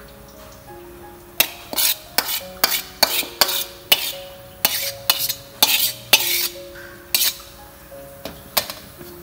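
Metal spatula scraping and clinking against a metal wok and a ceramic plate as stir-fried cabbage is scooped out, in a quick run of scrapes through the middle and two more near the end. Background music plays underneath.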